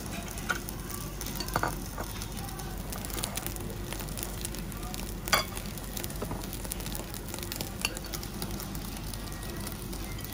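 Thick cuts of wagyu beef sizzling on a wire mesh grill over charcoal, a steady hiss with scattered sharp pops and clicks, the loudest about five seconds in.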